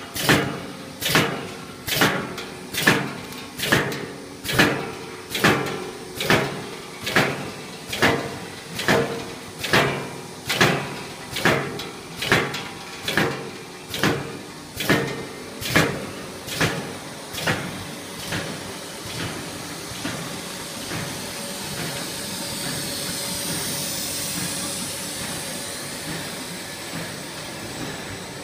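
Cutter on a ball-pen barrel extrusion line chopping the extruded tube to length: a sharp clack about once a second, each with a brief ring. The clacks fade away about two-thirds of the way through, leaving the steady hum and hiss of the running line.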